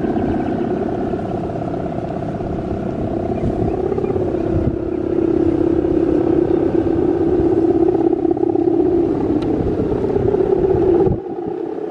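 Steady humming drone of a guangan, the bow hummer strung across the top of a large Balinese bebean kite, vibrating in the wind. One held pitch with overtones that wavers slightly, dropping suddenly near the end.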